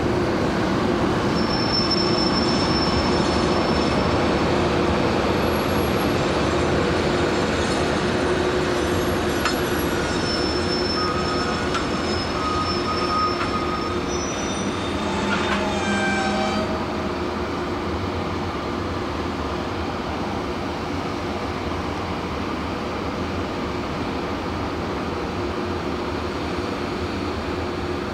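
EH500 electric locomotive hauling a container freight train at crawling speed, its cooling blowers running with a steady hum and the wheels giving thin high squeals over the rails. About halfway through a short falling whine sounds, and the running noise then settles a little quieter as the train comes to a stand.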